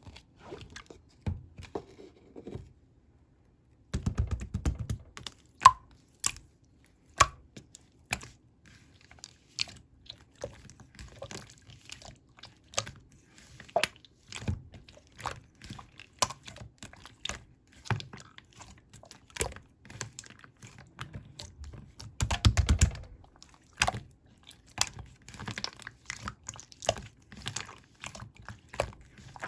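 Clear slime being worked by hand, giving a steady run of small sticky clicks and pops, with denser squishing about four seconds in and again past twenty-two seconds.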